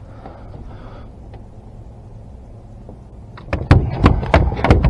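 An arrow-shot cownose ray thrashing on an aluminium diamond-plate boat deck: a quick run of loud slaps and knocks starting about three and a half seconds in, over a low steady hum.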